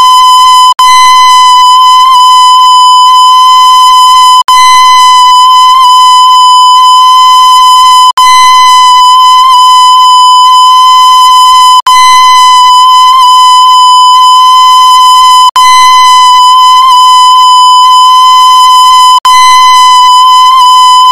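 A loud, steady tone with a single held pitch and many overtones, like a stretched electronic alarm or horn note. It cuts out for an instant about every three and a half seconds as the looped sound restarts.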